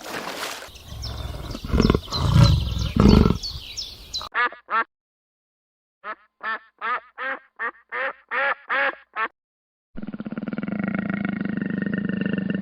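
A duck quacking: about a dozen short quacks, two and then a quick run of ten, between gaps of silence. Before them come loud low thuds with repeated high falling chirps, and near the end a steady low rumbling sound begins.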